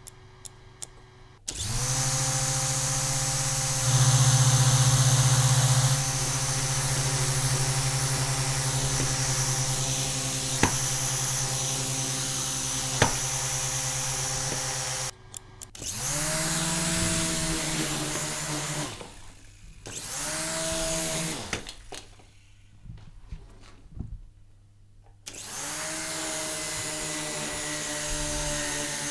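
Electric rotor motors of a toy coaxial RC helicopter, overvolted from a bench power supply at about 7 to 8 volts, spinning up with a rising whine and then running at a steady high whir. The first run stops abruptly about halfway through, and the motors then spin up again in three shorter runs.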